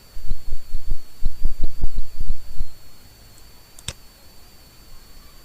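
A quick, uneven run of dull low thumps for about two and a half seconds, like handling knocks picked up by a desk microphone, then a single sharp mouse click, over a faint steady high-pitched electrical whine.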